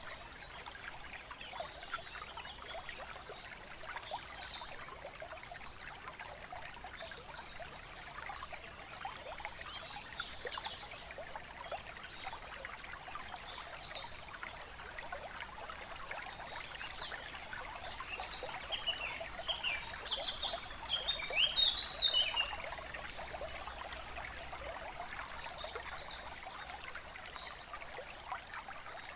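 Steady trickling of running water, like a small stream, with short high bird chirps repeating through the first half. A busier burst of bird calls about two-thirds of the way through is the loudest part.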